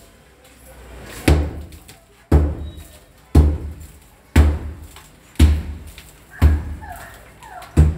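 Sledgehammer blows on a masonry wall being knocked down: seven heavy strikes about a second apart, each dying away briefly in the room.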